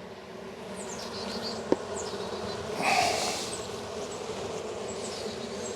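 Honey bees buzzing in a steady hum over an open hive of brood frames, swelling louder for a moment about three seconds in, with a faint click before that.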